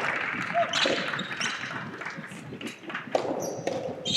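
Soft tennis being played on an indoor court: scattered knocks of the ball against rackets and floor, over the steady noise of a large hall.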